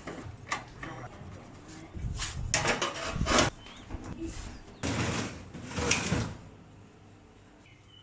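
Knocks, clicks and scraping in several bursts as parts of a dismantled oven are handled.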